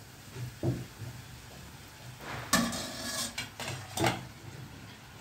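Metal kitchen utensils clinking and knocking against steel cookware. There are several separate knocks; the loudest comes about two and a half seconds in and rings briefly.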